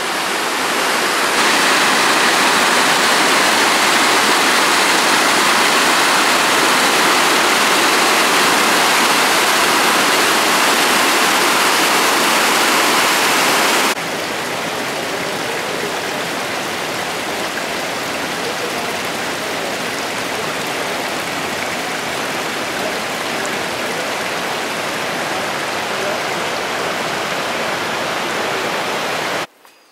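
Steady rush of fast-flowing river water, dropping suddenly to a lower level about halfway through and cutting off just before the end.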